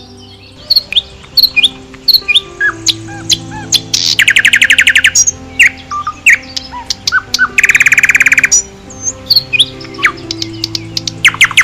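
Small birds chirping and twittering in quick short calls, with two rapid trills about four and eight seconds in, over background music of slow held notes.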